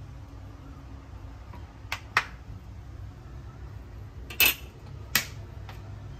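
Sharp clinks of a metal spoon against a stone-coated nonstick wok, two close together about two seconds in and two louder ones near the end, over a low steady hum.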